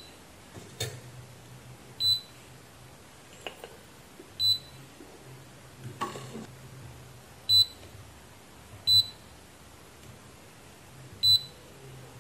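Digital multimeter giving short, high beeps, five in all at irregular gaps of one to three seconds, as its probes are set on components of a circuit board. Faint clicks of the probe tips come in between.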